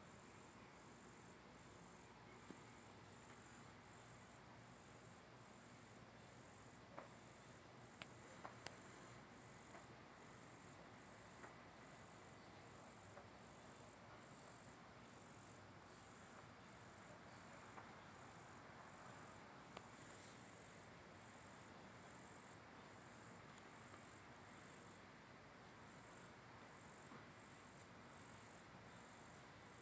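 Faint, high-pitched chirping of night insects, repeating as an even pulse about one and a half times a second, with a few small clicks.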